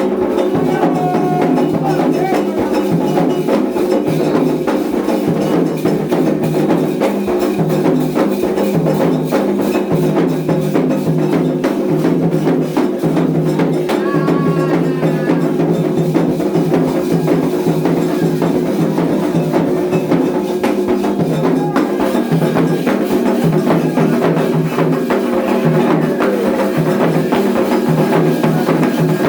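Samba music with a steady percussion beat.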